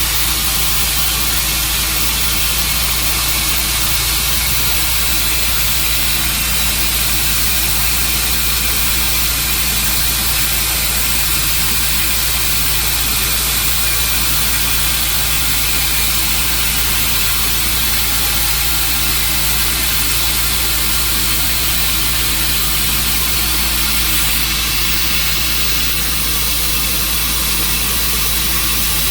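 An engine running steadily at constant speed, with a strong low hum and a constant hiss over it.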